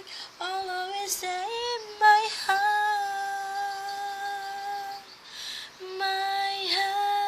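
A woman singing unaccompanied in a deliberately nasal voice: a few short phrases, then a long held note, a brief pause about five seconds in, and another long held note near the end.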